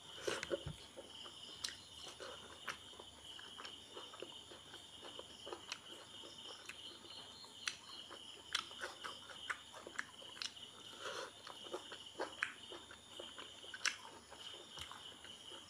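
Wet smacking and chewing clicks of someone eating rice with their hand, over a steady high chirring of insects.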